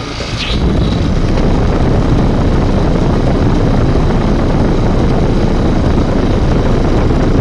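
American Standard central air conditioner outdoor unit running, its condenser fan blowing air in a steady, loud, rumbling whoosh that gets louder about half a second in and then holds level.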